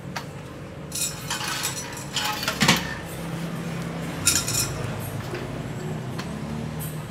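Aluminium pipes clinking and rattling against an aluminium frame as bent plate-holder pipes are handled and pushed into the frame's drilled holes: a run of light metallic clinks about a second in with one sharper knock, and another short burst of clinks about four seconds in.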